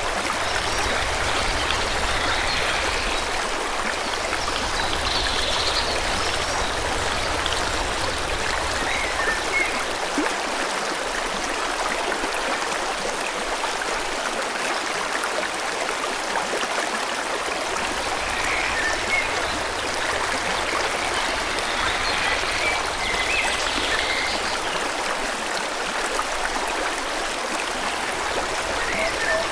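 A forest stream flowing steadily, with a constant rush of water. Small birds chirp in short bursts every few seconds above it.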